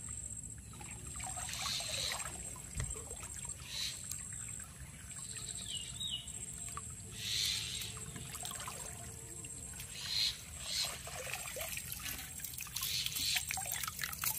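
Creek water sloshing and splashing in repeated short bursts, with water trickling and pouring off, as a bamboo fish trap is worked loose and lifted out of the shallow water.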